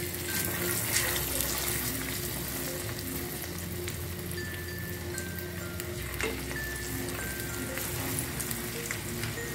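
Egg-and-cornstarch-coated chicken strips deep-frying in a saucepan of hot oil: a steady crackling sizzle with scattered sharper pops. Soft background music with bell-like notes plays underneath.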